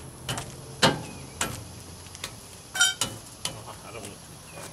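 Hammer blows knocking a steel Jeep bumper into position to line up its bolt holes: a string of sharp knocks, roughly two a second, one with a brief metallic ring about three seconds in.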